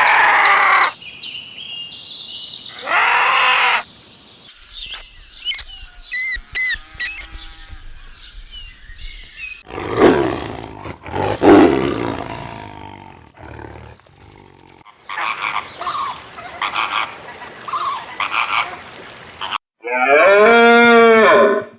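A string of different animal calls, one clip after another with short gaps: loud calls at the start and about 3 s in, thin chirping calls a few seconds later, more loud calls around 10 to 12 s, and a long pitched call near the end.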